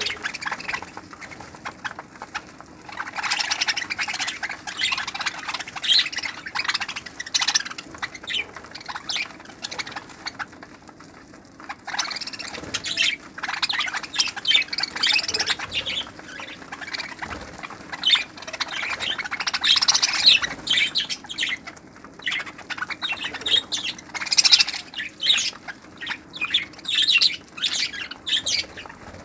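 A flock of budgerigars chattering: a busy, continuous mix of short chirps, warbles and squawks from many birds at once, with a brief lull about a third of the way through.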